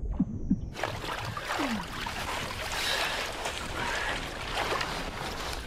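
A few low pulses underwater, then a sudden switch to a steady rush of wind and splashing water as a diver in a drysuit climbs out of a hole in the sea ice.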